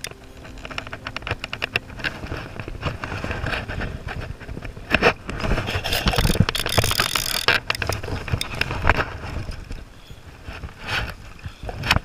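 Rustling, scraping and knocking of the camera rubbing against clothing, with wind buffeting the microphone over the flowing river water. The crackles come thick and uneven, loudest around five to nine seconds in.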